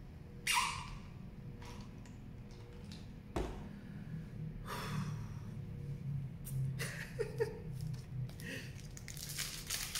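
A short slurp of iced coffee through a straw about half a second in, then a knock as the plastic cup is set down on the table about three and a half seconds in. After that, the crinkle and rustle of a foil Magic: The Gathering booster pack wrapper being handled and torn open, growing denser near the end.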